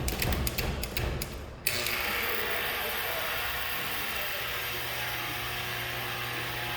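Rapid ratcheting clicks for about a second and a half, then a small motor running at a steady pitch for several seconds.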